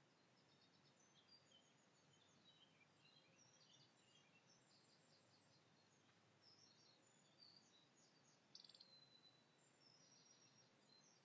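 Faint birdsong over near silence: scattered high chirps and short trills from small birds, with one louder rapid trill about eight and a half seconds in that runs into a held high note.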